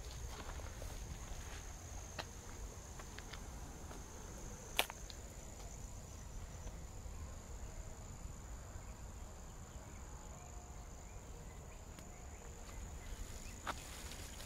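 Insects trilling steadily at one high pitch over a low rumble, with a few faint clicks and one sharp snap about five seconds in.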